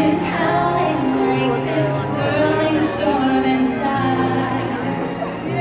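Nighttime-show soundtrack music: held accompanying chords under a woman singing a wavering melody line.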